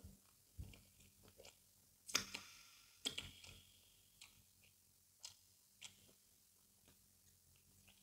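Close-miked wet mouth sounds of eating fufu and egusi soup by hand: sticky smacks and chewing clicks, the loudest cluster about two to three seconds in, then sparser single smacks as fingers are licked and the food is chewed.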